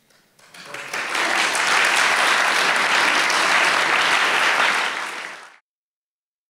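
Audience applauding at the end of a talk. The clapping builds over the first second, holds steady, then fades and cuts off abruptly a little after five seconds in.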